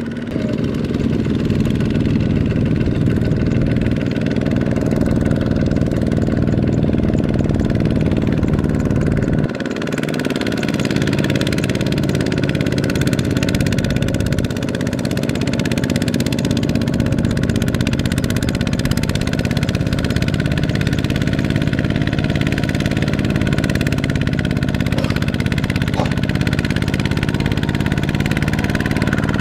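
Single-cylinder diesel engine of a Kubota RT155 walking tractor running steadily under load as it pulls a trailer of rice sacks through mud. There is a brief break in the sound about nine and a half seconds in.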